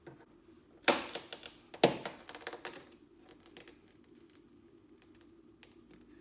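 Two sharp knocks about a second apart, each followed by a short clattering rattle, then a few light clicks from metal dent-pulling tools being worked or handled against the car panel.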